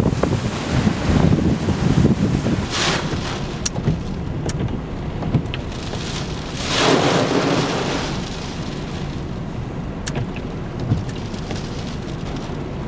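Storm wind buffeting the microphone over a steady rush of heavy rain. The gusts are strongest in the first few seconds, a surge of noise comes about seven seconds in, and a few sharp ticks sound now and then.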